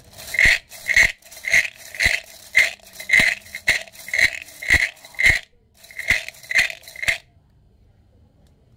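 Fortune sticks rattling in their cylinder as they are shaken and mixed before one is drawn (xin xăm), in regular strokes about twice a second. A short break comes about five seconds in, then three more rattles.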